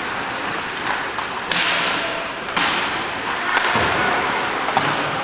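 Ice hockey play in a rink: three sharp knocks about a second apart, each followed by a hiss that dies away, over the steady noise of skates on the ice.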